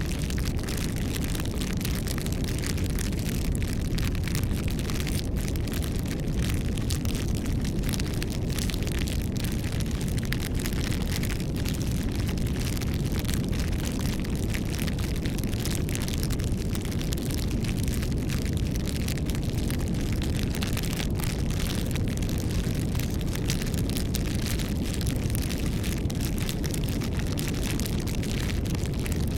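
Wood campfire burning steadily, with dense, continuous crackling and popping over a low, even sound of the flames.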